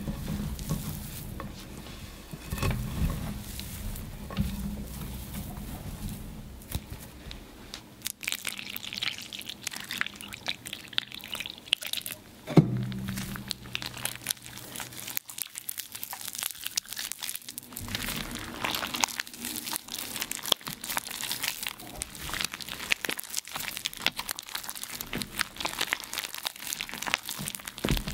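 Reformed gym chalk being crushed, crumbling with dense, irregular crisp crackles and crunches, with one sharper snap about halfway through.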